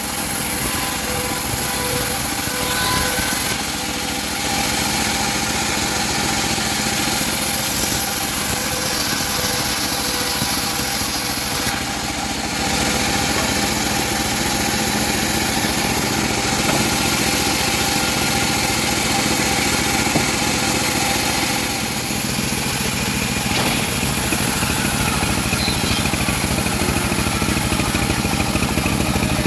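Homemade bandsaw sawmill running steadily as it saws through a teak log: a continuous machine drone with a high hiss from the blade, dipping briefly in level a few times.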